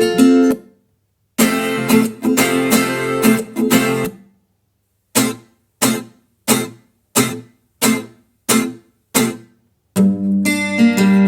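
Background music of strummed guitar chords: a strummed phrase cut off by short pauses, then seven short, clipped chords about two-thirds of a second apart, and full strumming again near the end.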